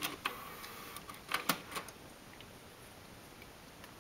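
A handful of sharp clicks and ticks in the first two seconds, then quiet, from the Nakamichi SoundSpace 5 3-CD music system as its top-panel buttons are pressed and the disc changer switches discs. No music is playing.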